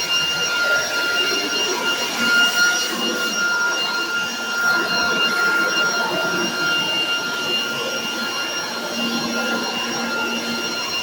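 Leaf blower running steadily, a rush of air with a constant high whine, blowing cottonwood fluff off a deck.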